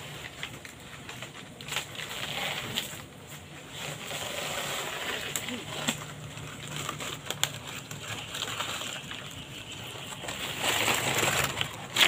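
Dry leaves and plant material rustling and crackling as they are handled, with scattered sharp clicks, louder and busier near the end.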